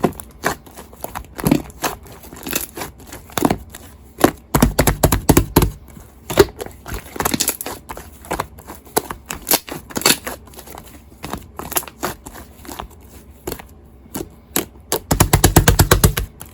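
Shaving-foam slime being squished and stretched, giving many sticky clicks and crackles, with two fast runs of loud popping, one about five seconds in and one near the end.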